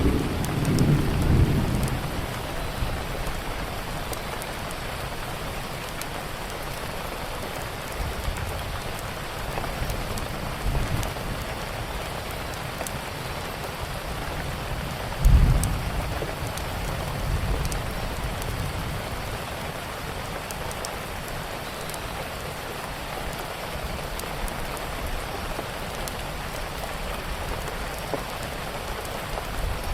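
Steady rain falling, with low rolls of thunder: a rumble in the first couple of seconds, lighter ones later, and a sudden louder clap about halfway through that rolls off over a few seconds.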